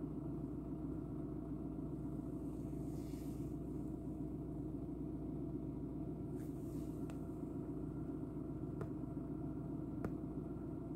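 Steady low hum of an idling car engine heard from inside the car. A few faint sharp ticks and brief faint swishes come over it.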